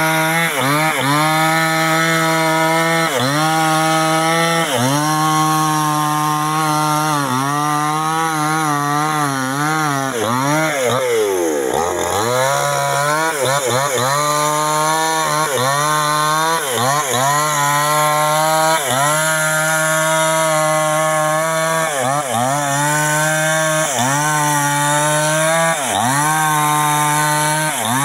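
Two-stroke chainsaw cutting into a coconut palm trunk at high revs, the engine pitch sagging briefly under load about once a second. Around the middle it drops almost to idle and then revs back up to cutting speed.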